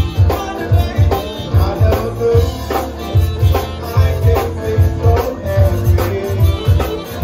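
Live zydeco band playing an instrumental passage: electric bass and drum kit keep a fast, steady beat under held melody notes.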